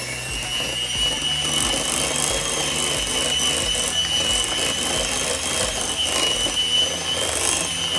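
Handheld electric mixer running at a steady speed, its beaters working a thick cream cheese and dulce de leche mixture in a glass bowl; a steady high-pitched motor whine.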